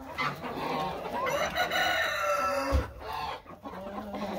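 A chicken flock clucking, with a long crow from a rooster starting about a second in.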